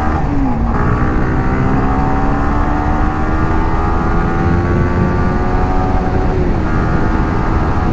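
Yamaha R15M's 155 cc single-cylinder engine pulling in gear under the rider. Just after the start it drops in pitch with a gear change, then rises slowly and steadily as the bike gathers speed, and dips a little about six and a half seconds in. Low wind noise runs underneath.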